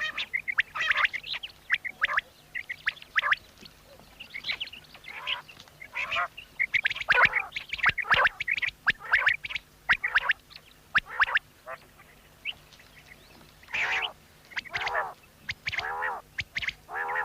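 Quail calling over and over: many short calls in quick succession, some of them sliding down in pitch.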